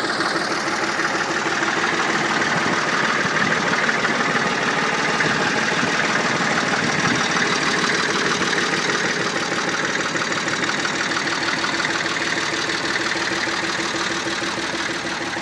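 1968 Deutz A-55 tractor's air-cooled diesel engine running steadily at low revs, getting a little quieter near the end.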